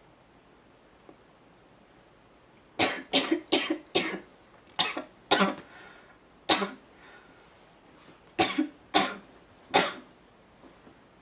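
A sick woman coughing: about ten coughs in fits, beginning about three seconds in with a quick run of four, then single coughs with pauses and a last group of three or four near the end.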